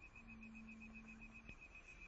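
Faint outdoor ambience: an insect's steady, rapidly pulsing high trill, with a low hum that stops about one and a half seconds in, where a single click sounds.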